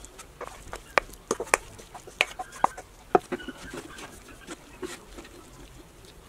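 Wooden spoon knocking and scraping against a skillet while mixing cooked rice and vegetables: irregular sharp clicks and taps, the loudest between about one and three seconds in.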